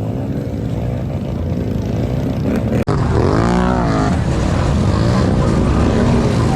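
Honda Foreman 520 ATV engine revving up and down repeatedly. It breaks off suddenly about three seconds in, then comes back with a long rise and fall in pitch.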